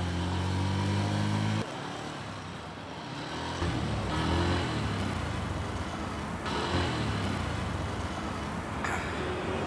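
Street traffic noise. A motorcycle engine runs steadily for the first second and a half, then cuts off suddenly.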